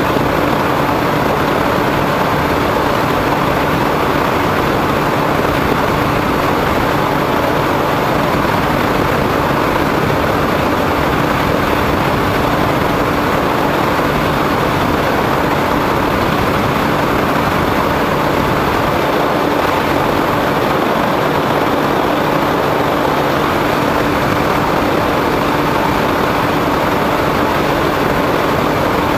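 Steady drone of a foam radio-controlled plane's motor and propeller in level flight, mixed with rushing wind, picked up by a camera mounted on the plane itself. A single steady hum sits in the noise, and the level stays even.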